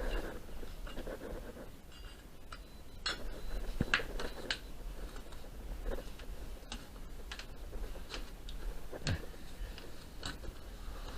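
Irregular light knocks and clicks, a few every couple of seconds, from tools and materials being handled during building work, over a low steady hum.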